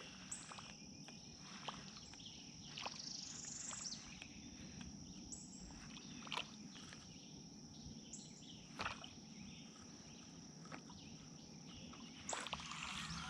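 Steady high-pitched insect drone, with a few short high chirps and scattered faint clicks over it.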